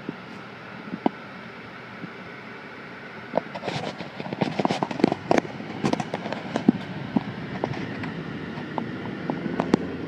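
Car cabin noise as the car pulls away from a stop, a steady hum of engine and road, with a dense run of sharp clicks and knocks starting about three and a half seconds in and going on more sparsely after that.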